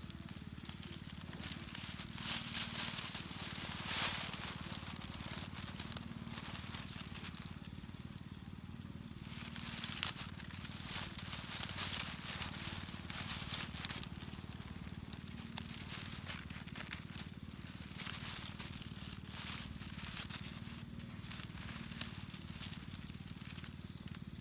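Dry bamboo leaf litter crackling and crunching in irregular bursts as it is stirred and pressed, with a steady low hum underneath.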